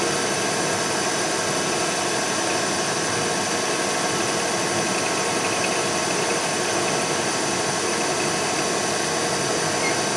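Milling machine spindle running an eighth-inch end mill through a white plastic block, a steady whine over an even hiss of the cut.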